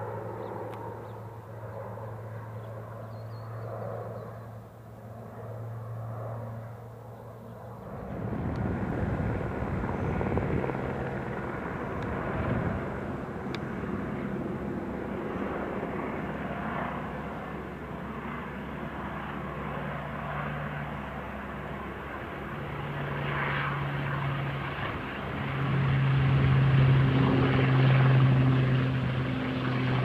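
Twin turboprop engines of a Grumman S-2T Tracker air tanker. At first a distant, steady propeller hum. About eight seconds in it changes abruptly to a louder rush of engine and propeller noise with a steady drone, which grows louder over the last several seconds as the plane lands and rolls past.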